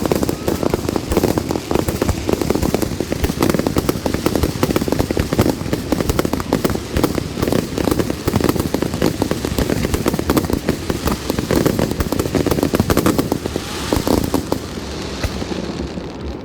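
Fireworks display: a dense run of rapid bangs and crackling bursts, easing off in the last few seconds.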